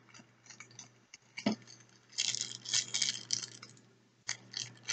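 A plastic bag of small wrapped hotel soaps being picked up and handled: crinkling plastic and light clicks and knocks, heaviest in the middle, as the bars shift inside.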